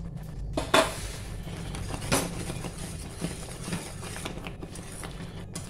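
Wire whisk stirring a thick, bubbling jaggery-and-khuwa fudge mixture in a wok, clicking against the pan a few times, most sharply about one and two seconds in, over a steady low hum.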